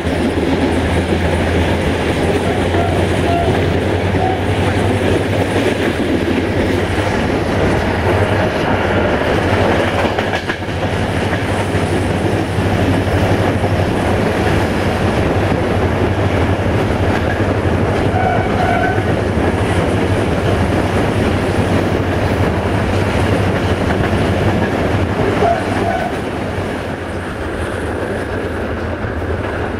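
Passenger train running at speed, heard from an open carriage window: steady wheel-on-rail noise with a low, even drone from the diesel locomotive hauling it, a little quieter near the end.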